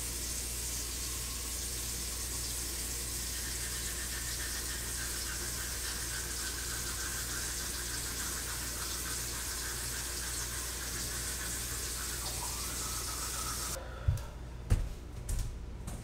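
Bathroom sink tap running steadily. The water sound cuts off near the end and a few short knocks follow.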